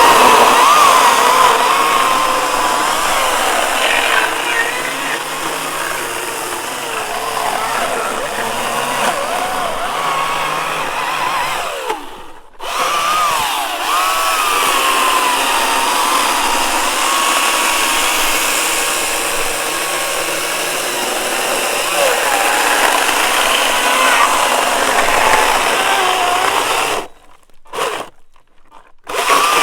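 GreenWorks Commercial battery chainsaw cutting wood. Its electric motor runs with a whine whose pitch dips and rises as the chain loads up in the cut. The saw stops briefly about twelve seconds in, then runs again and pauses twice near the end.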